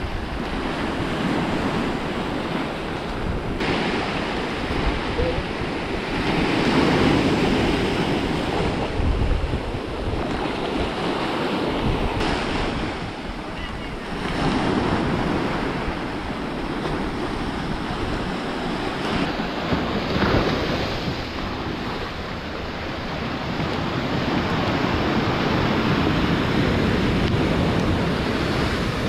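Sea surf breaking on a sandy, rocky shore, the wash of the waves rising and falling every several seconds, with wind buffeting the microphone.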